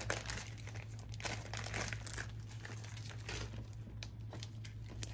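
Clear plastic bags crinkling as a hand picks them up from a cardboard box insert, in a string of irregular crackles.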